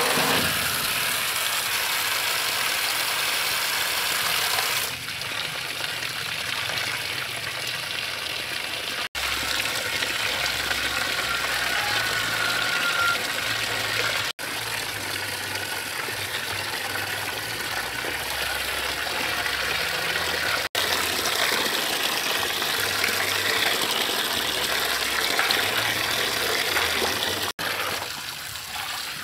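Tap water pouring hard into a large metal basin and splashing over raw meatballs as hands swish and rinse them. The steady rush breaks off for an instant four times.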